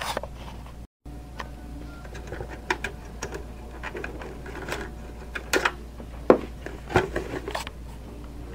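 Hands handling a plastic wireless access point, its mounting parts and cardboard box: scattered clicks, taps and rustles, the loudest a little past halfway.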